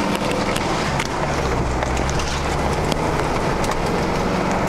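Off-road 4x4 driving over a rough dirt track, heard from inside the cab: a steady low engine hum with frequent short knocks and rattles as the vehicle bounces.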